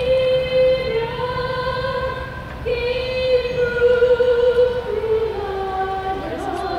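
A high voice singing slow, long-held notes that step from one pitch to the next every second or two, over a low rumble.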